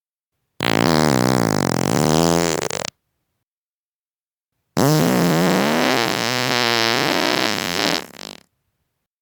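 Two long human farts, about two seconds apart: the first lasting about two seconds, the second about three and a half. Each is a buzzing tone that wavers in pitch, and the second turns raspy as it trails off near the end.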